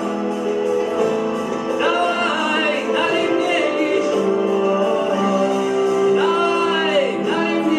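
Music: a song with a singing voice holding long notes with vibrato over steady sustained accompaniment.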